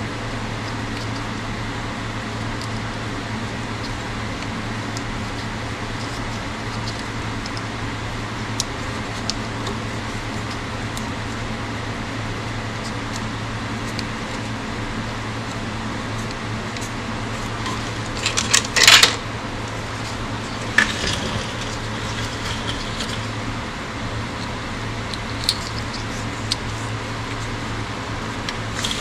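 Steady low hum in the background while hands work on the mower's clutch wiring, with scattered small clicks, a short metallic clatter about two-thirds of the way in, and a sharp click about two seconds after it.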